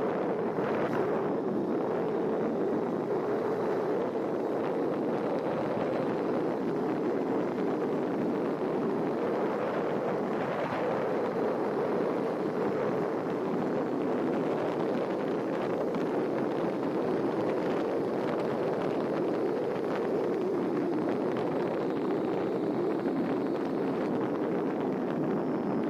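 Steady rushing wind and road noise on the microphone of a vehicle moving along the road. It keeps an even level throughout.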